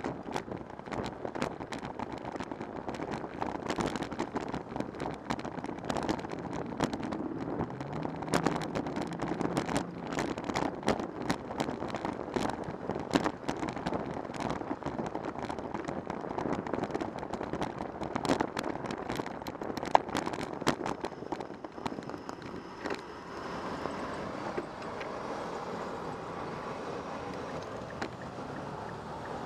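Bicycle riding along a city street: dense, irregular rattling and knocks from the bike and its mounted camera jolting over rough pavement, over a bed of road and traffic noise. The rattling stops about 22 seconds in as the bike slows, leaving a steadier traffic hum.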